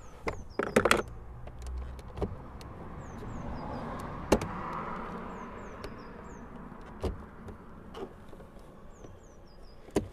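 Scattered clicks and knocks of hands and tools working on a car's plastic door trim, with a loud cluster about a second in and single sharp ones after. A rush of noise swells and fades in the middle, and a bird calls in small groups of short falling notes.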